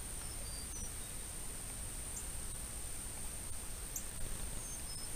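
Outdoor morning ambience: a few short, high, falling bird chirps over a steady high-pitched whine and a low rumble of wind on the microphone.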